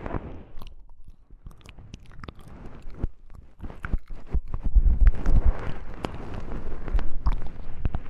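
Close-microphone ASMR trigger sounds: irregular soft clicks and taps with rustling swells, and low thumps on the microphone that are loudest about five seconds in.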